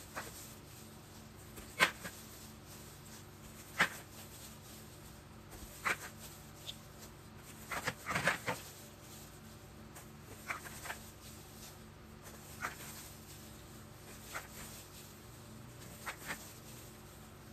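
Small plastic puto cups clacking as they are handled and set down one by one and stacked, with a spatula working the steamed cakes loose: sharp clicks about every two seconds, several in quick succession around the middle.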